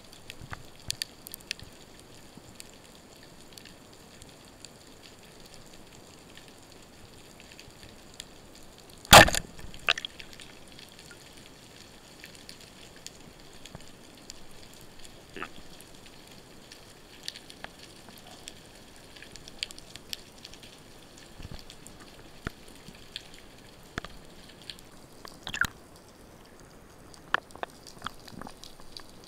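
Underwater ambience with scattered faint clicks and crackles, broken about nine seconds in by one loud, sharp crack of a speargun firing. A few more sharp knocks and clicks follow near the end as the speared fish is handled on the shaft.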